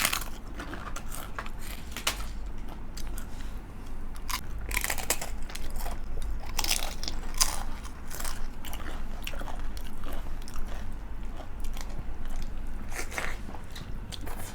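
Close-up biting and chewing of crisp food, with irregular crunches throughout.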